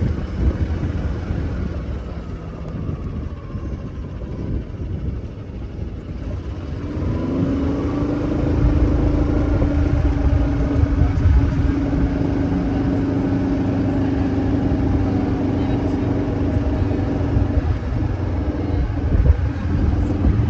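Golf cart driving along. Its motor note rises about seven seconds in and then holds steady over a low rumble.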